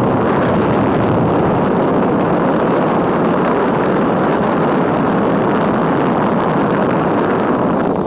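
Car air-conditioning blower fan running at full speed, a loud steady rush of air from the vents.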